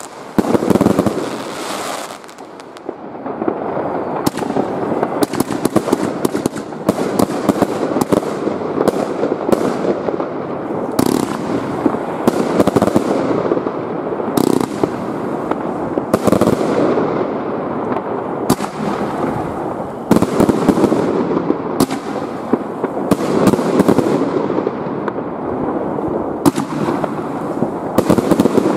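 Mass fireworks going off all around: a dense, continuous crackle with sharp bangs of bursting shells and firecrackers about once a second, briefly quieter about two seconds in.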